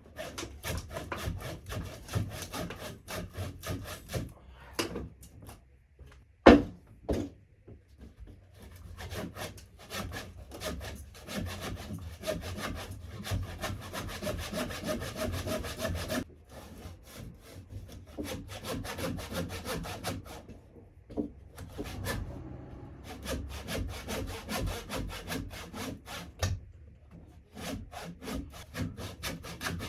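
Handsaw cutting through a log in a steady run of back-and-forth strokes, with a few short pauses. A single loud knock comes about six and a half seconds in.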